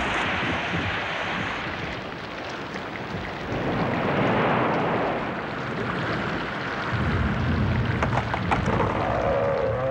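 Storm sound effects: a steady rush of rain and wind that swells and eases, with a low rumble of thunder about seven seconds in.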